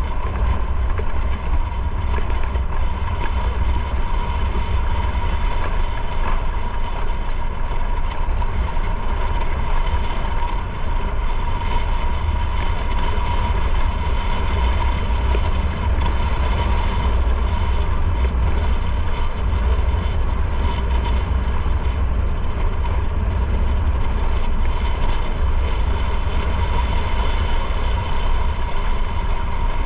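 Motorcycle riding on the road: steady engine and road noise under a heavy low rumble of wind on the microphone, with no sudden events.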